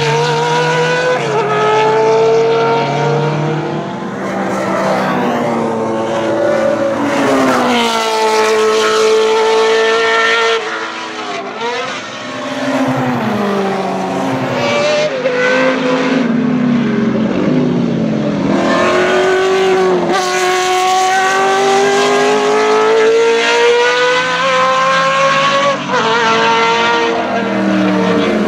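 Cosworth DFV V8 racing engine of a Lola T280 running hard around the circuit, its pitch climbing through each gear and dropping sharply at the gear changes, with a dip in level about twelve seconds in.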